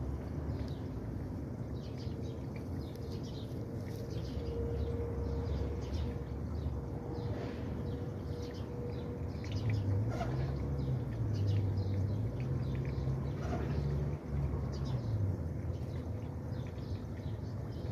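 Outdoor background sound: small birds chirping again and again over a steady low rumble, which rises and falls in pitch in the second half.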